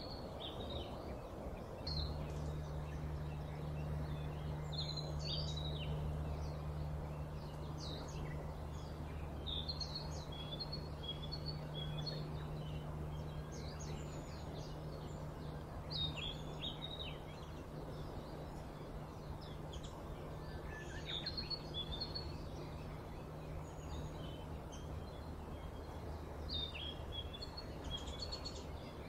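Small birds chirping in short, scattered calls over a steady low hum that comes in about two seconds in.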